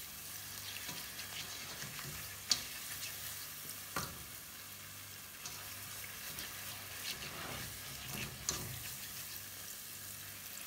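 Milk poured slowly into a hot butter-and-flour roux in a saucepan, the mixture sizzling softly while a wire whisk stirs it and knocks against the pan a few times.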